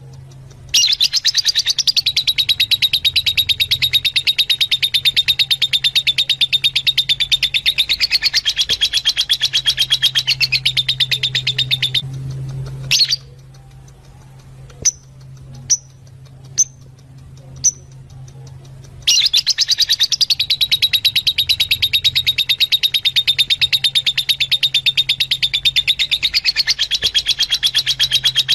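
Fischer's lovebirds chattering: a long run of rapid, high-pitched chirps that stops about twelve seconds in, leaving a few single sharp calls, then starts again about seven seconds later, over a steady low hum.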